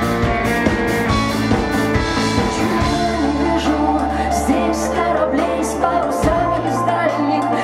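Live rock band playing: drum kit, electric and acoustic guitars, bass guitar and keyboard. About three seconds in the drum beat thins out under a long held low bass note, which changes about six seconds in.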